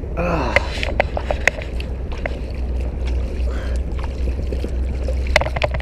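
Steady low rumble of wind buffeting the microphone, with a brief falling vocal sound at the start and a few sharp clicks around the first second and again near the end.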